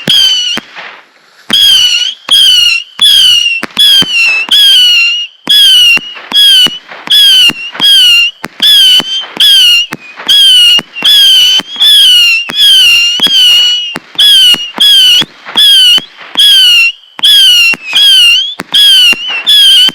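Red Apple Fireworks Zappers 100-shot cider missile firing: a rapid string of loud whistling missiles, each a brief wavering shriek of under half a second, about one and a half a second, with a short pause about a second in.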